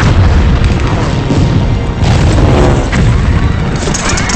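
Film sound effects of bomb explosions: heavy booms and rumbling blasts, one after another, mixed with a music score.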